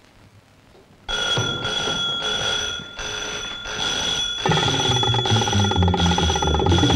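An electric alarm bell starts ringing suddenly about a second in, loud and high-pitched and pulsing, as the safe is approached. About halfway through, film background music with a low, rhythmic bass line joins it.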